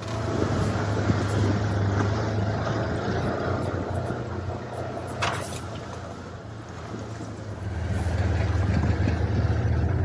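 Side-by-side UTV engine running steadily as the machine drives along a dirt trail, with a short sharp knock about five seconds in; the engine grows louder after a lull, about eight seconds in.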